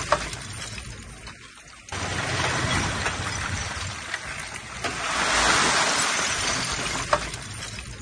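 Soil and rubble pouring and clattering out of a 5-ton dump truck's tipping bed over the low hum of its engine working the hoist. The rush comes in surges, one setting in suddenly about two seconds in and fading toward the end, with a sharp clink near the start and another about seven seconds in.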